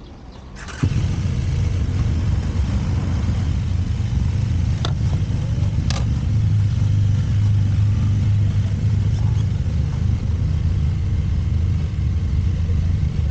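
Aprilia Tuono V4 1100 Factory's V4 engine catching on the starter about a second in and settling into a steady, low idle. Two light clicks come a few seconds later.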